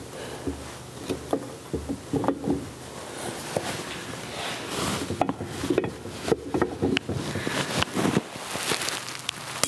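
Scattered light metallic clicks and knocks of a set screw being tightened down onto the flat of an arbor press's hand wheel shaft, with the cast hand wheel turned by hand in between.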